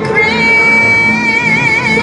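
A woman singing one long high note with vibrato into a microphone over backing music, the vibrato widening near the end.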